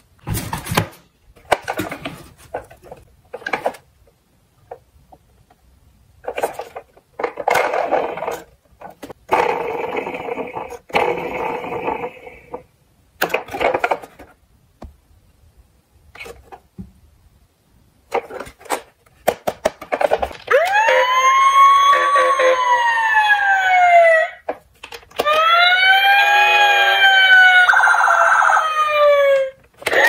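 Plastic toy fire trucks handled in a cardboard box: clicks, knocks and short scraping rustles. About two-thirds of the way in, a battery-powered Tonka toy fire truck's electronic siren plays, set off by its push buttons: two wails of a few seconds each, each rising briefly and then falling slowly in pitch.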